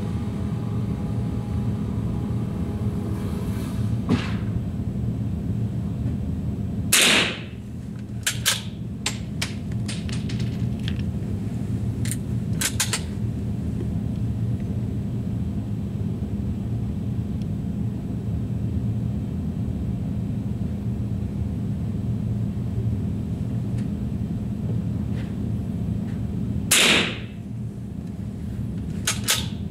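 Two rifle shots, one about seven seconds in and one near the end, each a sharp crack with a short ring-out, over a steady low hum. A string of light clicks follows the first shot.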